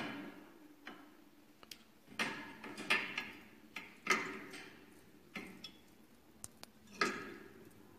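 Sharp metal clinks and knocks, each ringing briefly, as a metal mounting bracket and its fasteners are handled and fitted against the air bike's metal front post. About seven separate knocks, unevenly spaced, with a louder one near the end.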